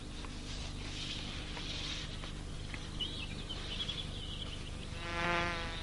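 Bees buzzing in flight around flowers, with one louder pitched buzz passing close about five seconds in.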